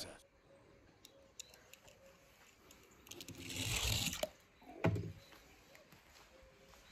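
A small die-cast toy car rolling down a glitter-covered ramp: a rough hiss that swells and fades over about a second, three seconds in, then a single thump. Faint scattered clicks before and after.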